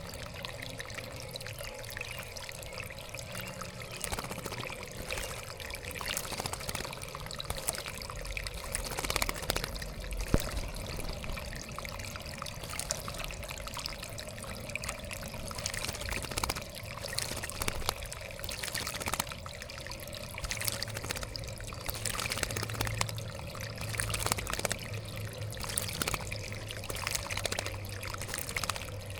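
Water trickling and splashing steadily in a backyard bird bath, with many small sharp splashes.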